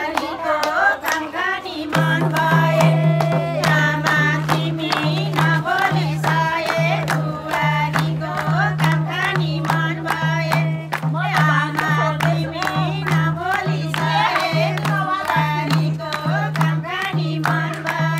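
Music with singing over a steady drum beat; a low held note comes in about two seconds in and pulses in time with the beat.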